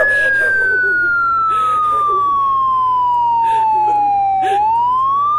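Siren wailing: one steady tone that slides slowly down for about four and a half seconds, then starts rising again, over a man's short sobs and cries.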